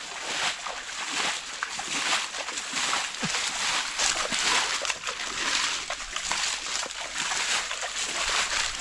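Water sloshing and splashing continuously, with many small irregular splashes.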